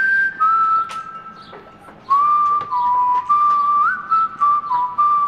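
A person whistling a slow tune: a string of held notes, mostly stepping down in pitch, with a pause about a second in and a quick upward slide near four seconds.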